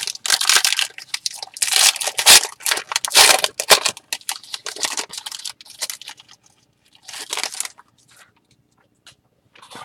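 Foil wrapper of a 2016-17 Court Kings basketball card pack being torn open and crinkled by hand in irregular bursts, thinning to a few faint rustles near the end.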